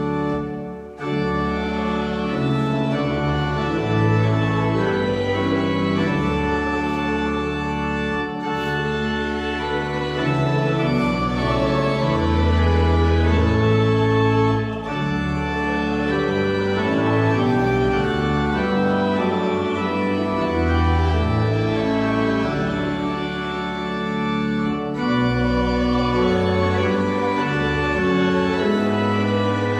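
Church organ playing slow, held chords over bass notes that change every second or two, with a short break about a second in.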